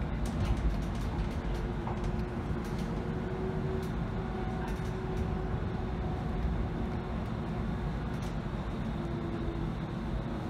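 Interior running noise of a Bombardier Flexity Freedom light rail vehicle in motion: a steady low rumble with a faint whine and a few light clicks.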